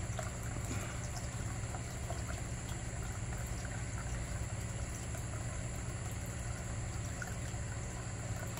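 Steady trickle of running water with a low, even hum underneath and a faint steady high tone above it.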